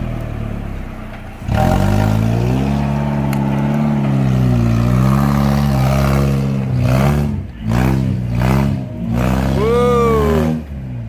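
Off-road 4x4's engine working hard, rising and falling in pitch as the throttle is worked. It jumps louder about a second and a half in and ends in several short revs with dips between them.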